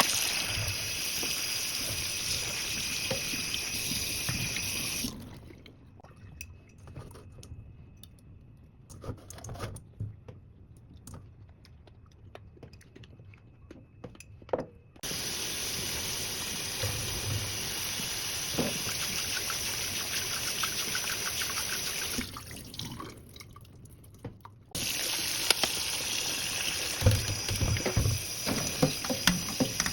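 Kitchen tap running into a sink in a steady stream. It is turned off twice for several seconds at a time, and small knocks and clatter can be heard in between.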